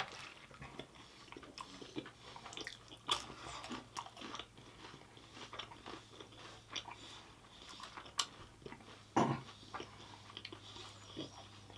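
Close-up chewing and biting of food, with scattered small crunches and mouth clicks, one a little louder about nine seconds in.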